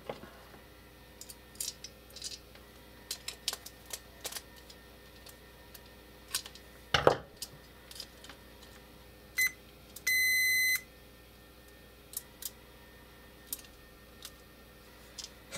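Digital multimeter's continuity beeper: a brief beep, then a steady beep of under a second, as the relay's plunger is pushed in and the first leg's contacts close only sporadically. Small clicks and taps from working the plunger and handling the probes sound throughout, one louder near the middle.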